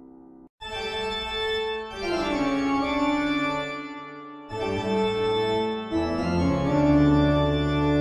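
Horror-style organ music: after a brief break about half a second in, loud sustained organ chords begin, each held for one to two seconds before the next.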